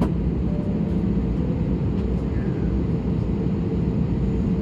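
Steady low rumble of an Airbus A320neo's engines and airflow heard inside the passenger cabin, with a single sharp click at the very start.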